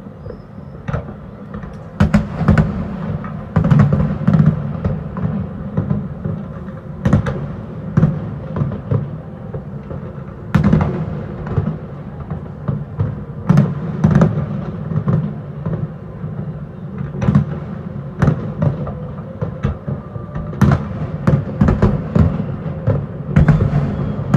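Aerial fireworks shells bursting in an irregular barrage: many sharp bangs, some in quick clusters, over a continuous low rumble.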